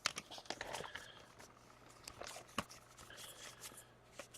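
Faint rubbing and sliding of trading cards being handled, with a few light ticks.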